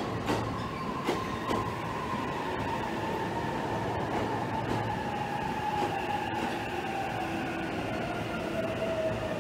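JR East stainless-steel commuter electric train pulling into a platform. Its motor whine falls steadily in pitch as it brakes, over a rumble of wheels, with a few sharp wheel clacks in the first second and a half.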